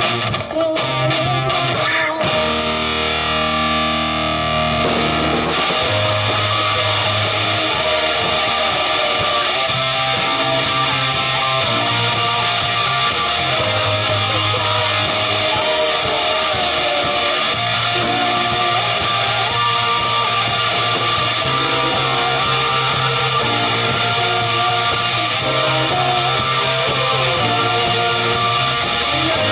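Live amateur rock band playing guitar, bass and drums with a steady beat. The highest sounds drop out for a couple of seconds near the start, then the full band comes back in.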